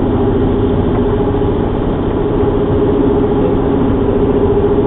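Steady road and engine noise inside a car cruising at freeway speed, with a low, even hum.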